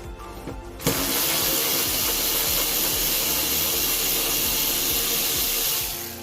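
A steady, loud hiss like rushing air or spray, starting abruptly about a second in and fading just before the end.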